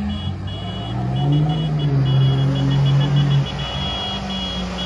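Pickup truck engine revving hard during a burnout: the pitch climbs over the first two seconds, holds high, then drops back about three and a half seconds in. A high squeal breaks on and off over it.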